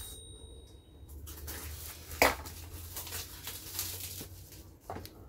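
Product packaging being handled: a small cardboard box opened and a clear plastic bag crinkling as the device is pulled out. There are scattered rustles and a sharp click about two seconds in, and a thin high tone fades away in the first second.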